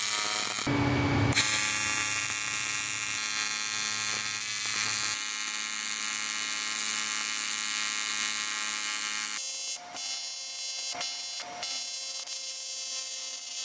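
TIG welding arc buzzing steadily as it welds a cast aluminium intake piece. About nine seconds in, the buzz thins out and breaks off briefly a few times.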